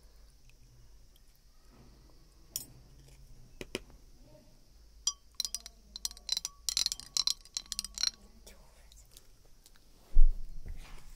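A thin stirrer clinking against the inside of a drinking glass while stirring a liquid: scattered clinks at first, then a quick run of ringing clinks about halfway through. A dull thump near the end.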